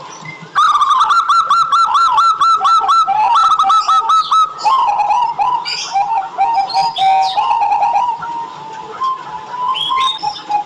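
Zebra dove (perkutut) cooing. A quick run of short, repeated notes comes at about five a second for the first few seconds, then looser, more varied notes follow, with higher chirps mixed in around the middle.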